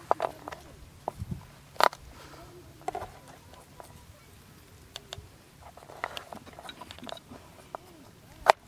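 Garlic being peeled by hand and cut with a chef's knife on a plastic cutting board: irregular taps, clicks and knocks of the knife and cloves on the board, the loudest knock near the end.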